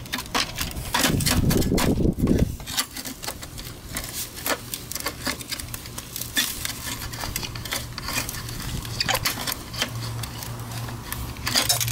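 Screwdriver prying and scraping at the seam of a scooter muffler's thin steel shell and end cap, giving many irregular metallic clicks, scrapes and clinks. A low rumble sounds briefly about a second in.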